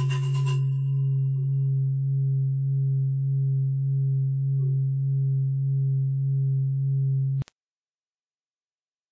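Steady low electronic drone tone, a pure sine-like hum with a faint higher overtone, gently pulsing in loudness. A shimmering high layer fades out within the first second. The drone cuts off abruptly with a click near the end.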